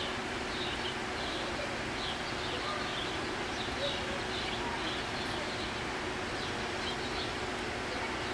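Steady rushing of a waterfall, with small birds chirping over it in short, high, repeated chirps.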